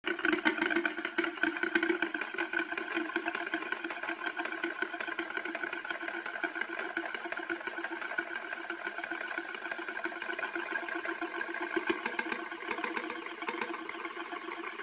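Euler's Disk, a heavy steel disk, spinning and rolling on its concave mirrored base: a fast whirring rattle with a steady ringing tone, a little louder in the first couple of seconds.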